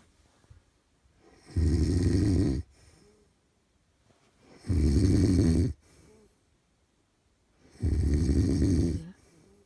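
A sleeping man snoring: three loud snores about three seconds apart, each lasting about a second, with a faint breath out after each.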